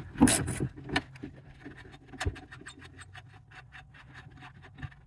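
Hand tool working small bolts out of a steering column. A couple of louder scrapes come at the start, then a long run of quick, even metallic clicks.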